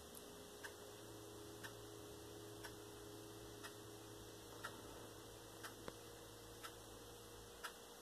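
Near silence: room tone with a faint, regular tick about once a second over a low steady hum.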